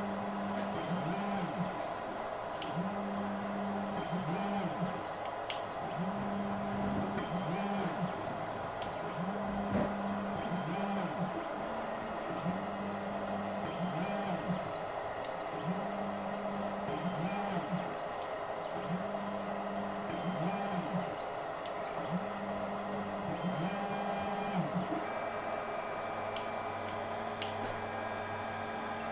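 Flowfon P20 3D printer's stepper motors whining in short moves about every two seconds as the print head and bed step between probe points during automatic bed levelling, over the steady whirr of the printer's cooling fans.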